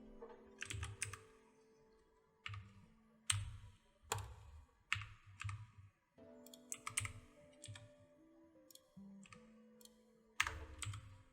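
Computer keyboard and mouse clicks, irregular and in small clusters with short pauses between, from someone working at a computer.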